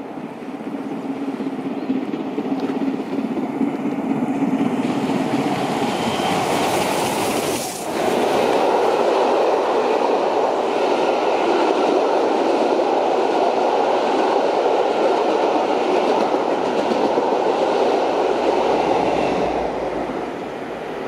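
LMS Princess Coronation Class Pacific steam locomotive 'Duchess of Sutherland' hauling a train past at speed. The sound grows louder over the first few seconds as the engine nears, then the coaches roll by with a steady rumble and clatter of wheels on the rails, which fades near the end.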